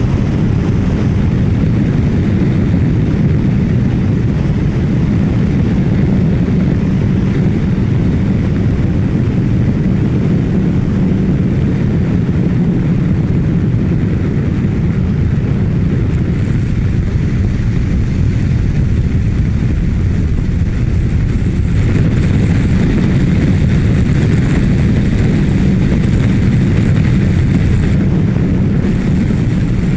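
Kawasaki Ninja 1000SX's inline-four engine running steadily at highway cruising speed, around 120 km/h, under a heavy rush of wind over the rider's microphone.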